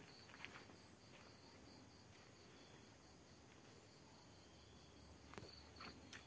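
Faint crickets chirping steadily in a high, pulsing trill, with a few soft clicks near the end.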